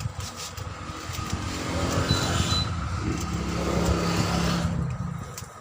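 A motor vehicle's engine running, swelling over a few seconds and then dropping away near the end.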